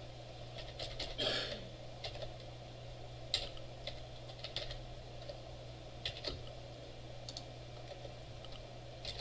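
Typing on a computer keyboard: irregular runs of keystroke clicks, with a short burst of noise just over a second in, over a steady low hum.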